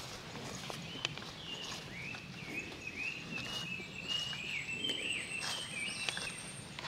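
Footsteps on the trail with a rapid series of short, high chirping notes from a small animal, starting about a second and a half in and running for about four and a half seconds.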